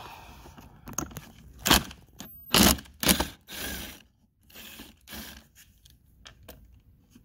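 Short bursts of a cordless drill backing screws out of a plastic heater and evaporator housing, mixed with scrapes, cracks and knocks of the plastic being handled. The loudest bursts come in the first half; the sounds thin out and grow quieter near the end.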